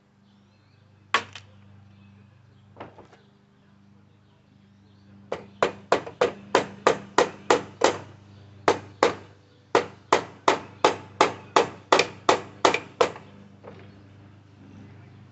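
Hammer blows during the tear-down of a mobility scooter: two single strikes, then a long run of quick, even blows, about four a second, with two short breaks, stopping about thirteen seconds in.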